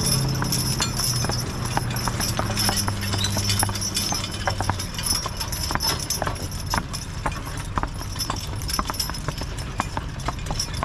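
Team of two Belgian draft horses walking at a steady pace, their hooves clip-clopping on asphalt in an uneven overlapping rhythm. A low steady hum underneath fades out about halfway through.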